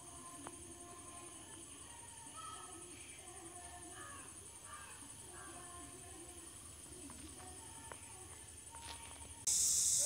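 Steady high-pitched buzzing of insects such as crickets, with faint scattered bird calls. Near the end a much louder high hiss cuts in suddenly.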